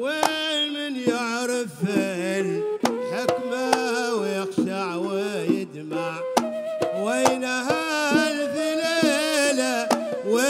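Live Hadrami zarbadi dance music: a wavering, ornamented melody that glides between notes, over irregular hand-drum strokes.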